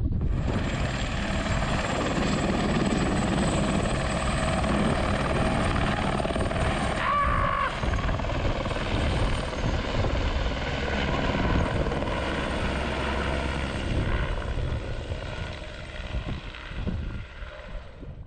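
Helicopter running close by: a steady, loud rhythmic rotor beat with a turbine whine over it. The sound fades out over the last few seconds.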